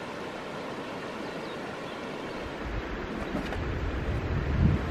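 Steady rushing of a shallow, rocky stream. From about halfway in, low gusts of wind buffet the microphone and grow louder.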